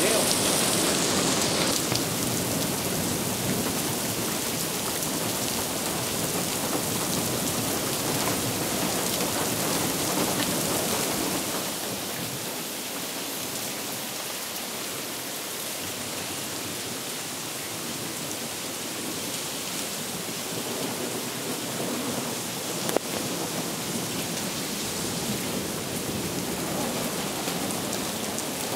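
Steady rain falling during a thunderstorm, with a low rumble of thunder in the first part that dies away before the middle.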